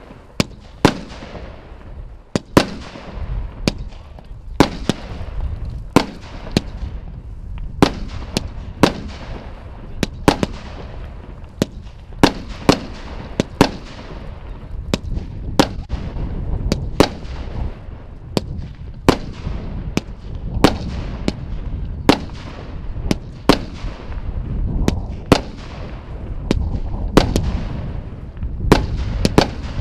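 Royal Fireworks 'Wonderful World' fireworks cake firing a steady barrage of shots. Sharp bangs come about one or two a second, each trailing off in an echo over a constant low rumble.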